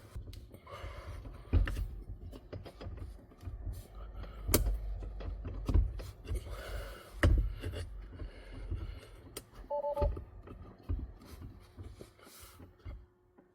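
Hands working a rubber-and-metal performance pedal cover onto a car's brake pedal: scattered clicks, knocks and rubbing as the pad is stretched and pushed around the pedal's edges.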